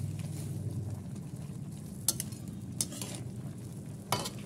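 Metal spatula stirring sautéed Malabar spinach and shrimp in a pan of steaming broth, over a steady low sizzle. The spatula clacks against the pan a few times, most sharply near the end.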